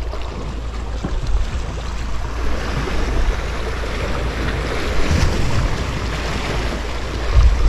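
Sea surf washing and breaking among the concrete blocks of a breakwater, growing fuller about a third of the way in, with wind rumbling on the microphone.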